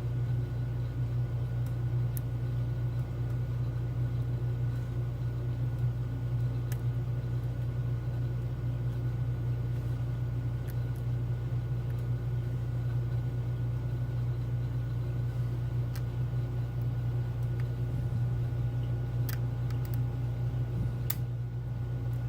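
Steady low mechanical hum, like a fan or appliance running, with a few faint, sharp clicks scattered through it.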